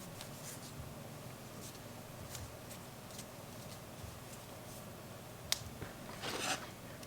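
Faint handling noises of a phone and its plastic screen-protector installation tray: a few light clicks and taps, a sharper click about five and a half seconds in, and a short rustle a second later.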